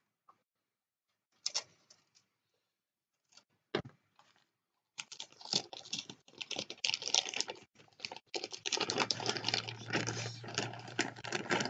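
Plastic model-kit sprues being handled and packed back into their box: a few separate clicks and knocks at first, then from about five seconds in a dense, continuous clatter and crinkle of plastic.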